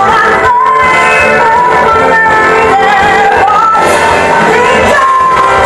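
Live stage-musical song: a singer holding long, sliding notes over a loud rock-band accompaniment.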